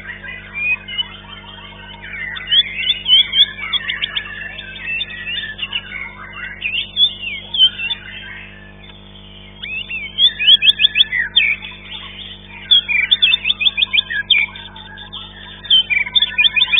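White-rumped shama (murai batu) singing in contest: rapid chattering runs of short notes mixed with whistled phrases, overlapping other birds' song. It pauses briefly about halfway, then comes back with fast runs of clipped notes.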